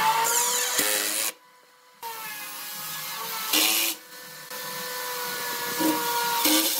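Cordless drill driving long wood screws into pine table legs: the motor whines steadily in three runs, stopping for a moment about a second in, with a short harsher burst about three and a half seconds in.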